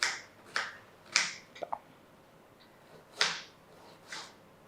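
Kitchen knife chopping an onion into small pieces on a cutting board: six sharp chops at uneven intervals, with a pause of about a second and a half in the middle.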